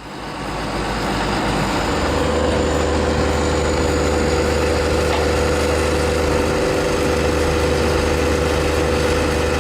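A heavy machine's engine running steadily, fading in and settling into an even hum about two seconds in.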